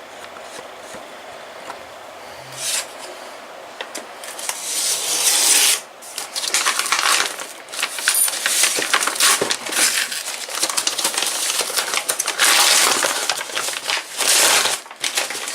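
Cardboard box being opened and handled: irregular scraping, rubbing and rustling of cardboard and packing, starting about four seconds in after a quiet stretch.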